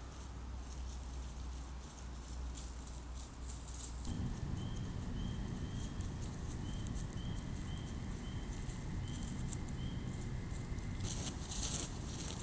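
Wild animals moving through forest undergrowth, heard on a trail camera's microphone: soft patter and rustling in the leaf litter. Through the middle a faint short chirp repeats about twice a second. Near the end there is loud close crackling and clicking as a black bear moves right at the camera.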